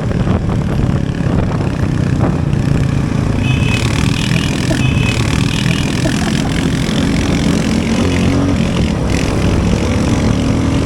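Motorcycle engine running steadily under way, with two short high beeps about three and a half and four and a half seconds in, and the engine note rising slightly near the end.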